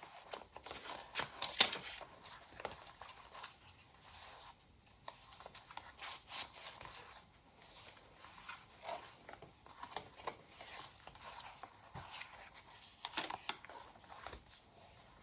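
Cardstock and paper pages of a handmade junk journal rustling and scraping as it is handled and flipped through, with scattered soft taps and one sharper rustle about one and a half seconds in.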